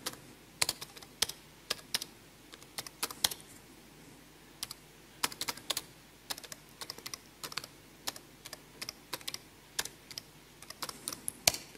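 Typing on a computer keyboard: irregular key clicks, with a short pause about four seconds in.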